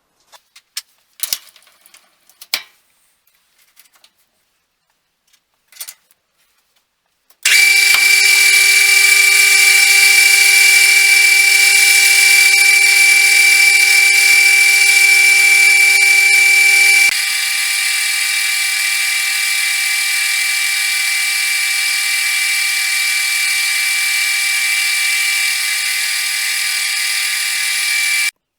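A few light clicks, then about seven seconds in a metal lathe starts up and runs steadily with a whine as the nut blank is center drilled. About ten seconds later the sound drops somewhat in level and loses its lower hum, then runs on steadily.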